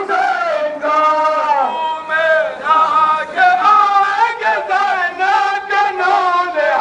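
Male voices chanting a nauha, the Shia mourning lament recited at matam, in one continuous melodic line that slides between notes.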